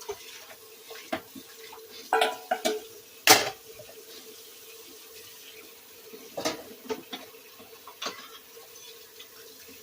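Kitchen dishes, pots and utensils clinking and knocking as they are handled and set down, in a handful of separate knocks with the loudest about a third of the way in. A steady faint hum runs underneath.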